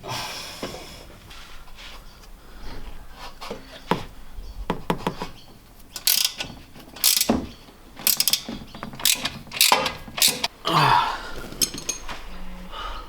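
Ratchet wrench clicking in short, irregular runs as exhaust bolts are tightened, with scattered metallic clicks and knocks.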